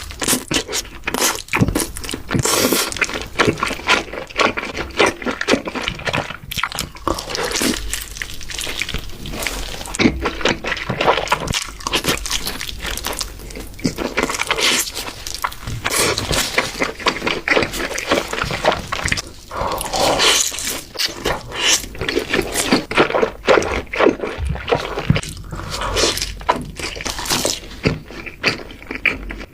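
Close-miked eating sounds: continual irregular chewing and biting, with wet, crunchy mouth noises.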